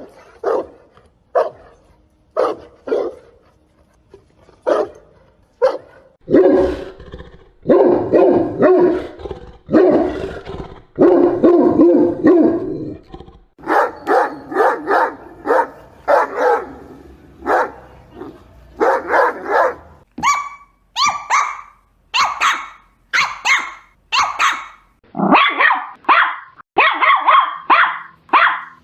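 A sequence of different dog breeds barking, one after another. First come deep, spaced barks from a Dogue de Bordeaux, then a dense run of deep barks from a Cane Corso and barks from a Great Dane. After about twenty seconds the barks turn high-pitched and thin, with a Papillon and then a Chihuahua yapping quickly.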